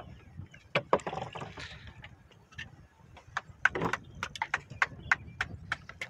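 Handling noises in a wooden fishing boat: a string of sharp knocks and clatter on the wooden hull and thwart, with a couple of brief scraping rustles, while a traíra is being brought aboard.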